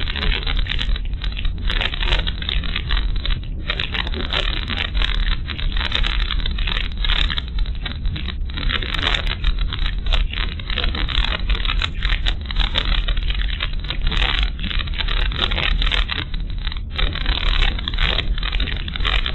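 Car driving along a rough rural road, heard inside the cabin through a dashcam microphone: a steady low rumble of tyres and engine under a continuous hiss, with irregular crackling.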